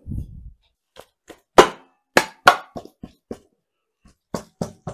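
Steel pry bar working the oil pan off a Honda K24 engine: a low thud at the start, then about eight irregular sharp metal knocks and clanks as the factory-sealed pan is levered loose.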